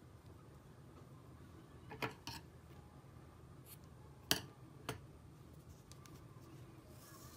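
Small scissors snipping yarn: a few light, sharp clicks, two close together about two seconds in and two more between four and five seconds in, over a faint steady room hum.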